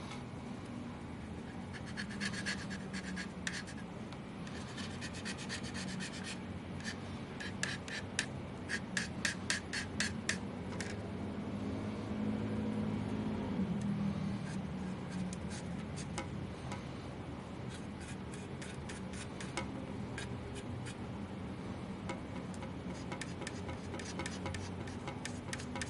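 Hand work on a graphics card: rubbing and scraping with runs of rapid small clicks, over a steady low hum.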